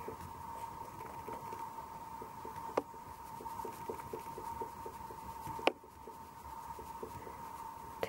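Oil pastel scratching across paper in quick, short strokes. Two sharp clicks come about three and five and a half seconds in, over a steady high hum.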